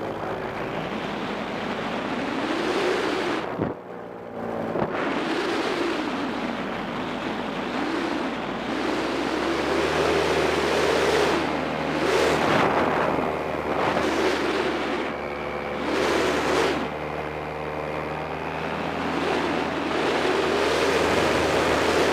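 Paramotor engine and propeller running steadily in flight, with wind rushing over the microphone in swells. The engine sound dips briefly about four seconds in and its note shifts about ten seconds in.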